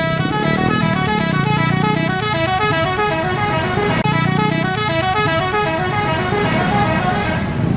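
Multi-tone musical bus horn playing a fast tune of short notes that step up and down in pitch. The phrase starts over about four seconds in.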